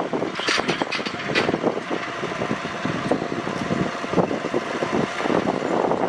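Case Puma tractor's diesel engine running under load while ploughing, the sound rough and uneven, with a few brief harsher noises in the first second and a half.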